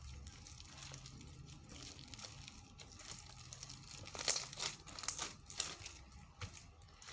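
Foam-bead slime being kneaded by hand: fine crinkling and crackling, louder from about four seconds in.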